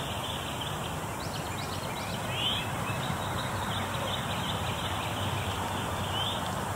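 Birds calling faintly, a few short chirps scattered through, over a steady hiss and low rumble.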